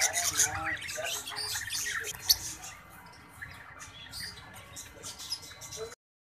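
Caged lovebirds giving many short, high chirps and squawks, thicker in the first half and thinner later, cutting off suddenly near the end.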